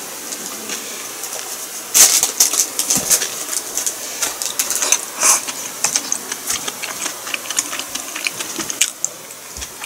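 Eating sounds close to the microphone: irregular clicks and crunches of chewing and utensils, loudest about two seconds in and again about five seconds in.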